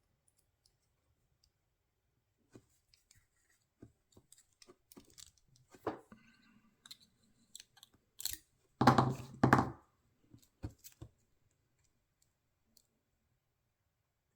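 Lock picking a Titan padlock with a homemade hook pick and tension wrench: small scattered clicks and scrapes of the pick working the pins in the keyway. About nine seconds in come two louder knocks, metal rattling as the lock is handled.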